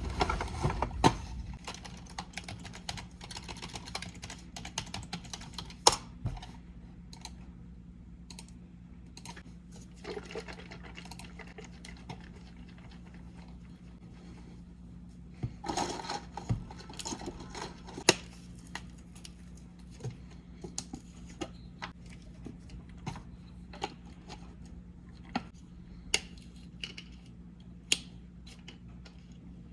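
Keys tapping on a computer keyboard in irregular runs, busiest in the first few seconds and again about halfway through, then sparser single clicks, over a low steady hum.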